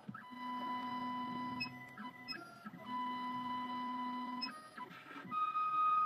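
The stepper motors of a CNC key cutting machine whine as they drive the clamp carriage into position under the cutter and probe. There are two long steady runs with a short pause between them, then several shorter stop-start moves near the end.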